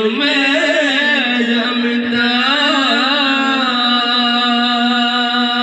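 Men chanting an Acehnese song unaccompanied into microphones, the voice winding through ornamented phrases and then settling into a long held note about halfway through.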